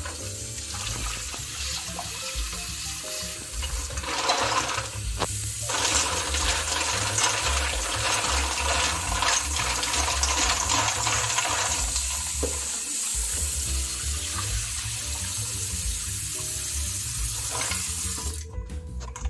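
Kitchen tap running into a stainless steel bowl of mussels as they are rinsed, with the shells knocking together as a hand stirs them. The water cuts off suddenly near the end.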